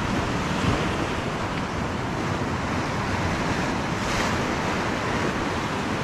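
Ocean surf breaking and washing over a rocky shore platform, a steady rush of white water, with one wave crashing against the rocks about four seconds in.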